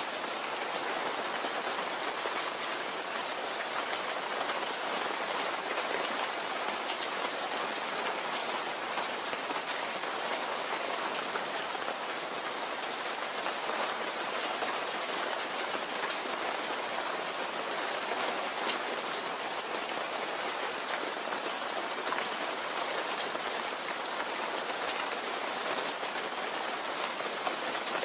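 Steady rain falling and pattering on a surface, with fine scattered drop ticks.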